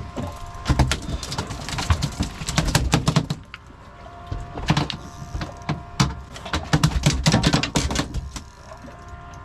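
A freshly landed tuna beating its tail against the boat deck, in several bursts of rapid knocking and slapping.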